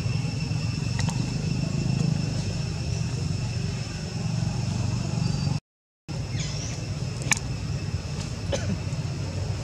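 Steady background noise: a low rumble with two steady high-pitched whines and a few faint clicks. It cuts out completely for about half a second midway.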